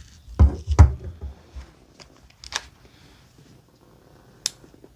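Handling of a Leatherman Wave multitool being taken out and opened to cut into packaging: two heavy knocks in the first second, then scattered light clicks and scrapes, and a sharp click near the end.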